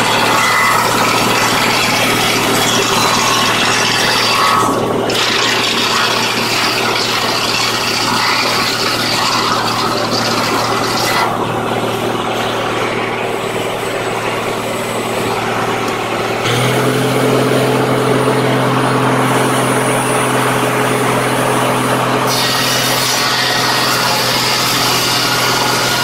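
Large circular sawmill blade ripping lengthwise through a log, a loud grainy cutting noise over the steady drone of the mill's drive. The cutting noise falls away for several seconds near the middle while the blade runs free, the drive note changes and gets heavier about two-thirds of the way in, and the cutting comes back strongly near the end.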